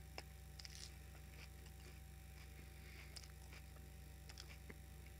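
Near silence: room tone with a steady low electrical hum and a few faint scattered clicks.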